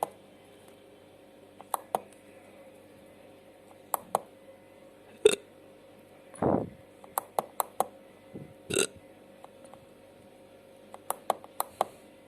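Scattered sharp clicks and light knocks in a pause between tracks, with a short low guttural sound about six and a half seconds in.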